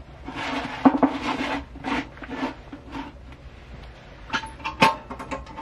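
Utensils scraping and clinking on metal dishes: several rasping scrapes over the first three seconds, then a quick run of sharp, briefly ringing clinks near the end.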